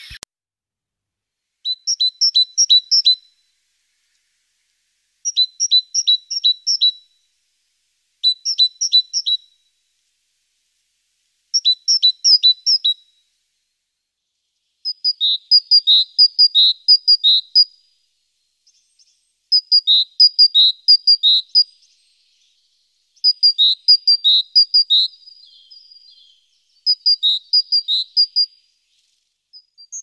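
Great tit singing: eight strophes, each a quick run of a repeated two-note motif, with pauses of a second or two between. About halfway through, the bird switches to a different song type with longer strophes.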